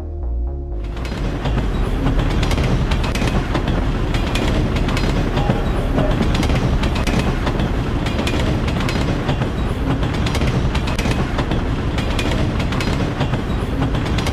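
Moving train running on rails: a steady rumble with many small clacks of wheels on track, coming in about a second in as music stops.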